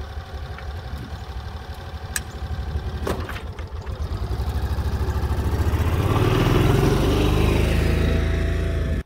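2008 Kawasaki Mule utility vehicle's engine idling with an even pulsing beat, with two sharp clicks about two and three seconds in. From about four seconds in the engine revs up and grows louder as the Mule pulls away, loudest near the end.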